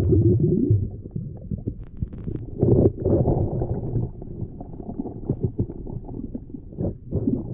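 Muffled underwater sound picked up by an action camera in its housing while snorkeling: an uneven low rumble of water moving around the camera, louder for the first second, with a few faint clicks about two seconds in.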